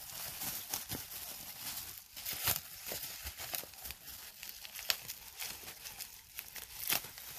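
Bubble wrap crinkling and rustling as it is handled and unwrapped, with irregular crackles and a few sharper snaps.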